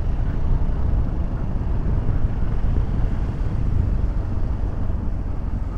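Maxi-scooter riding at steady road speed: a continuous low engine and wind rumble picked up by the handlebar-mounted camera, easing off a little near the end.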